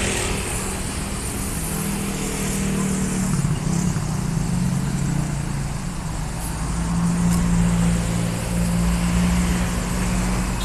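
Road traffic passing close by, with the steady low hum of a heavy vehicle's engine running that dips briefly in pitch about three and a half seconds in.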